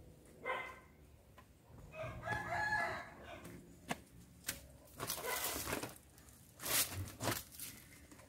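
Chickens calling: a short call about half a second in, then a longer, wavering call of about a second. Several bursts of rustling follow in the second half.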